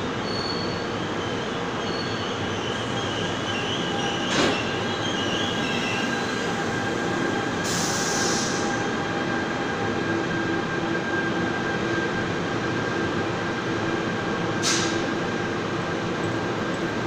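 NJ Transit commuter train rolling past a platform in an enclosed underground station: steady rumble of wheels on rail with faint squeal, a sharp clank about four seconds in and another near the end, and a brief hiss about eight seconds in.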